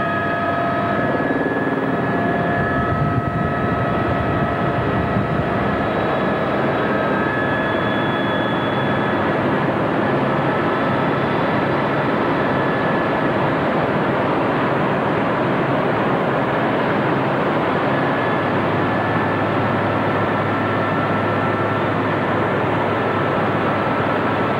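Cabin noise of an Aérospatiale AS350B Squirrel helicopter in flight: the steady rush of rotor and Turbomeca Arriel 1B turboshaft engine, with thin high turbine whine tones over it.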